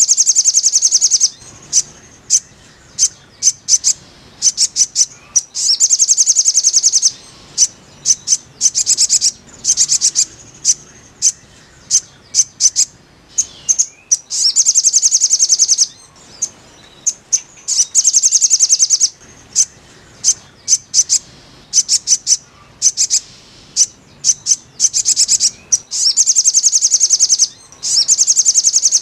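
A sogon (sogok ontong, a spiderhunter) calling: rapid high trills lasting a second or two, repeated every few seconds, with single sharp chirps in between. It is the kind of call played to cage birds to get them singing.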